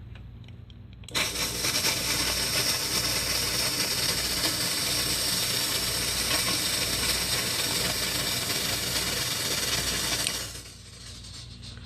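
Smoke machine running, a loud steady hiss with a fine rattle, pushing smoke into the engine's intake to find a vacuum leak. It switches on about a second in and cuts off abruptly near the end, over a steady low hum.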